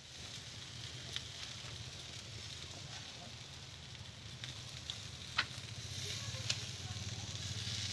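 Chicken wings on bamboo skewers sizzling over a charcoal grill, with a few sharp pops from the fire.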